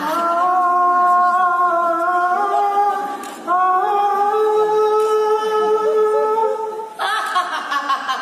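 A woman singing two long held notes without accompaniment, the second pitched higher than the first and wavering slightly near its end; the held singing stops about seven seconds in.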